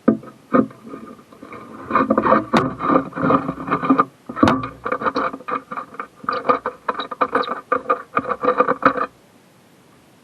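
Dense clattering and knocking as a truck cab's trim panel is worked loose and handled, the knocks carrying a ringing tone. It stops about a second before the end.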